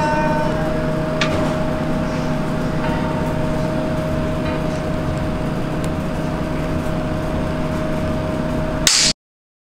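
Steady hum of laboratory equipment, with a faint click about a second in and a sharp click near the end, just before the sound cuts off abruptly.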